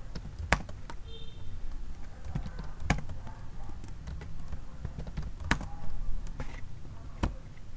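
Computer keyboard keys clicking as code is typed, in irregular keystrokes a few per second with some pauses, over a low steady hum.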